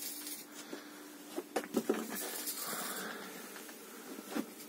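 Faint hiss with a few light, sharp clicks about one and a half to two seconds in, a brief soft rustle near the middle and one more click near the end: handling noise.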